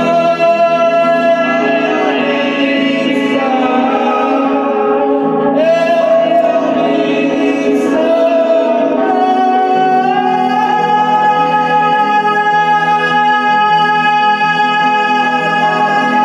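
Music: a voice singing long, held notes that slide between pitches, over a steady low accompaniment.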